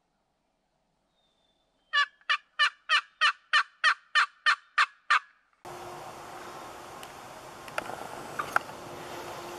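A run of about eleven turkey yelps, evenly spaced at about three a second, each note dropping in pitch. After it comes a steady hiss with a couple of sharp clicks.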